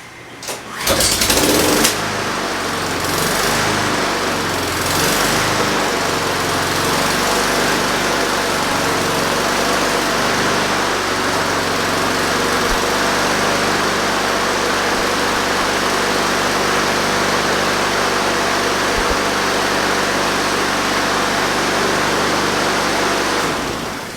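Honda GCV170 push mower's single-cylinder engine pull-started about a second in, catching at once, running a little unevenly for a few seconds and then steadily, and shut off near the end. It is a test run on fresh 10W-30 oil.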